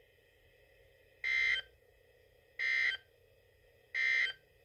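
Three short, identical bursts of buzzy digital data tones, each a little over a second apart, with near silence between: the NOAA Weather Radio SAME end-of-message code that closes an Emergency Alert System warning.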